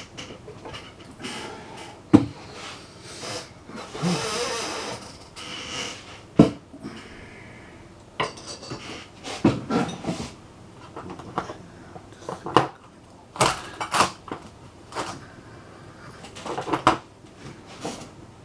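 Metal hand tools clinking and clattering as they are handled and set down, with irregular sharp knocks and a stretch of scraping about four seconds in.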